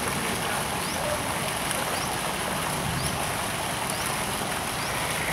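Steady rushing water noise with no break. A faint short high chirp repeats a little more often than once a second.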